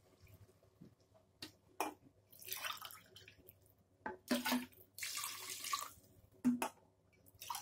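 Water poured from a steel tumbler into a pot of mutton masala, in a few separate splashing pours with short knocks between them.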